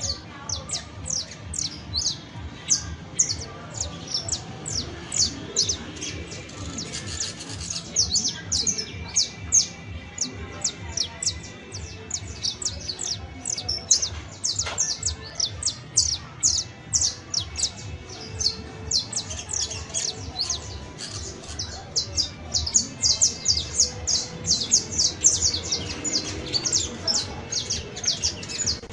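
Saffron finch (canario criollo) singing a long, continuous song of rapid, high, sharp notes, each sweeping downward, several a second without a break.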